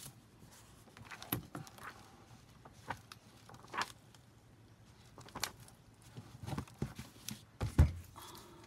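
Handling an old cloth-bound hardcover book: soft paper rustles and small taps as it is opened and its pages are turned. Near the end it is set down on the countertop with a short thud, the loudest sound.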